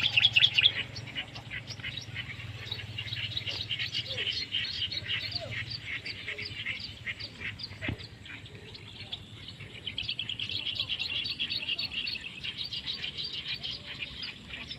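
Small birds chirping over and over in short, quick high notes, with a faster run of trilling about ten seconds in. A low steady hum sits under the first half.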